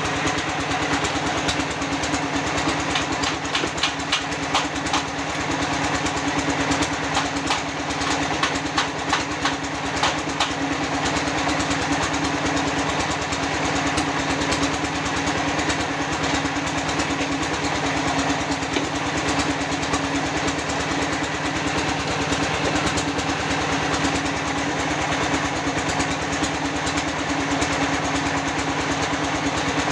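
Small engine running steadily at a constant speed, with a run of sharp metallic knocks and clanks over it for the first ten seconds or so.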